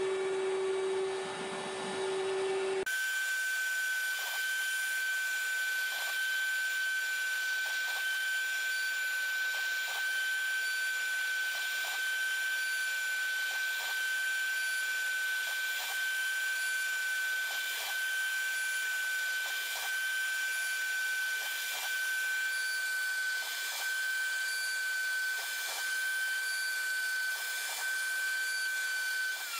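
CNC router spindle running at a steady high whine, with the hiss of dust extraction, while an engraving bit cuts a crosshatch pattern into a wooden block. The pitch of the whine shifts abruptly about three seconds in.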